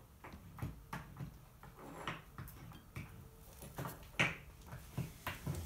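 Soldering the copper-foiled seams of a stained glass lampshade with an electric soldering iron: scattered small clicks of the iron and solder against the glass and a few brief soft hisses.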